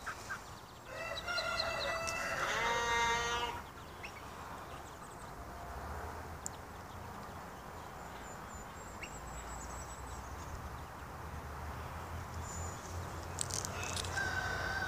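A rooster crowing once, starting about a second in and lasting over two seconds, over a steady low rumble. A shorter animal call comes near the end.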